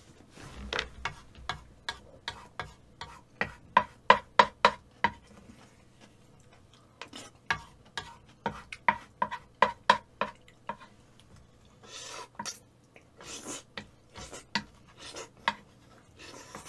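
A metal spoon and chopsticks scrape and clink against a large bowl, gathering the last noodles and black bean sauce. The clinks come in quick runs of about three a second, with a pause between the runs. Several longer, noisier scrapes follow near the end.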